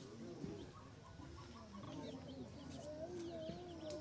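Chickens clucking, a string of short wavering calls, with fainter high chirps above them.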